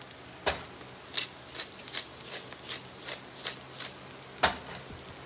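Hand-twisted salt and pepper grinder being worked, giving short crunching rasps about two to three times a second. A heavier knock comes about half a second in, and a louder, sharper one near the end.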